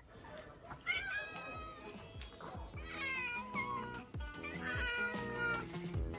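Cat meowing three times, about two seconds apart, each a drawn-out call that bends in pitch, over background music with a steady beat.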